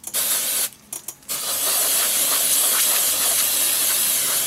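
Aerosol deodorizing and antibacterial spray hissing into a leather baseball glove: a short spray, a brief pause, then one long continuous spray.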